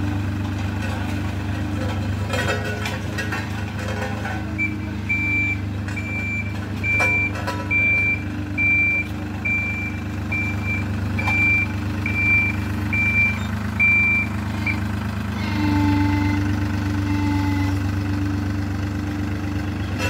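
Dynapac tandem asphalt roller's diesel engine running steadily, with its reversing alarm giving a regular series of short high beeps from about 5 to 15 seconds in. The engine note grows stronger after the beeping stops.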